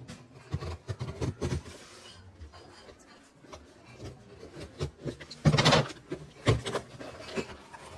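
Scissors slitting the packing tape on a cardboard box, with scraping and small clicks. About five and a half seconds in the lid is pulled open with a loud cardboard scrape, followed a second later by a sharp knock.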